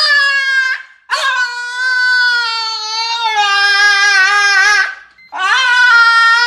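French bulldog howling in long, wavering calls: a short one ending just under a second in, one lasting about four seconds, and another starting past the middle.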